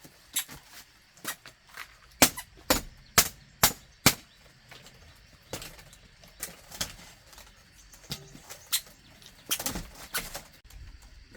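A series of sharp knocks or strikes, irregularly spaced, with a loud run of five at about two a second in the first half and weaker scattered knocks after.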